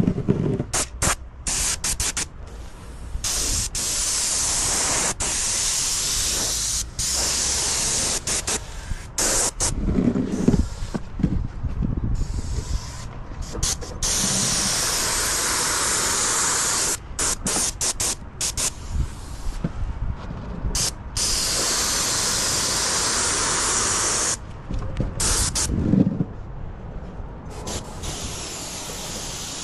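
Airless paint spray gun hissing as the trigger is pulled and released, in long passes of several seconds with short bursts between.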